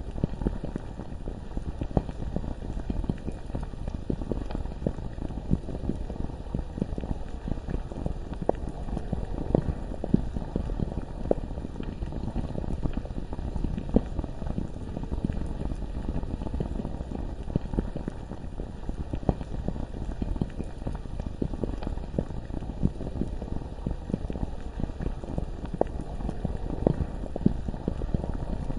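Bubbling lava ambience: a steady, low, thick bubbling with frequent small pops scattered irregularly throughout.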